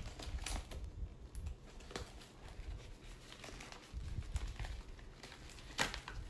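Paper wrapping rustling and crinkling as hands unwrap a paper-wrapped potted plant, in short irregular bursts, with one sharper, louder crackle near the end.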